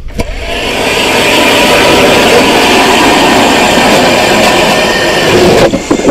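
Battery-powered electric ice auger drilling a hole through lake ice: a loud, steady motor whir with the blade grinding and throwing out ice chips. The sound shifts lower and breaks up near the end.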